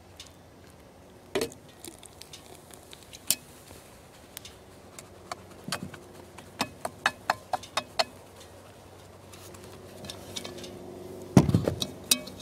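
A utensil clinking and scraping against the side of a Dutch oven while stirring soda into dry cake mix, with a quick run of sharp clinks past the middle and the loudest knocks near the end.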